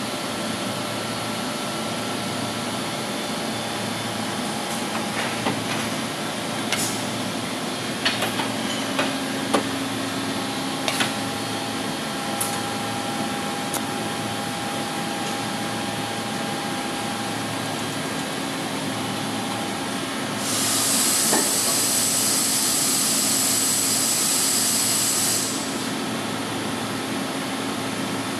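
Steady mechanical hum of a powered-up Amada Vipros 357 Queen turret punch press standing idle, with a few scattered clicks. About twenty seconds in comes a loud hiss like escaping compressed air, lasting about five seconds before it cuts off.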